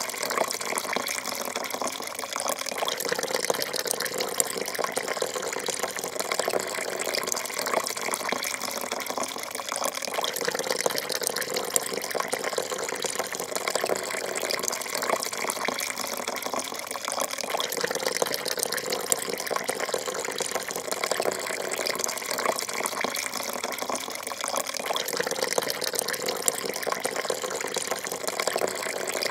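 Coffee pouring in a thin, steady stream into a porcelain cup, a continuous splashing trickle that does not change.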